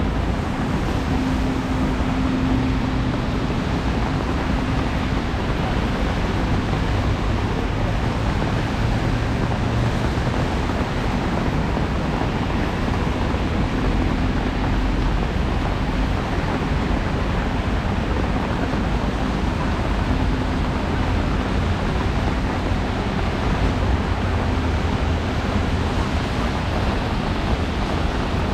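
Steady city traffic on a rain-wet street: tyres hissing on wet asphalt over a low hum of engines.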